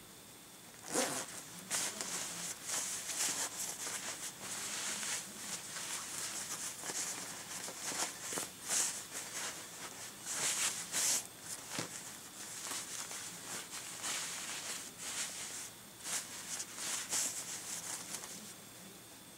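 Irregular rustling and crinkling as doll clothing and crinkly plastic packaging are handled, in uneven bursts from about a second in until near the end.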